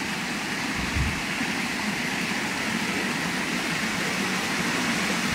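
Steady rush of flowing water with splashing from wading and fish thrashing as a hand scoop net works the shallows; a low thump about a second in.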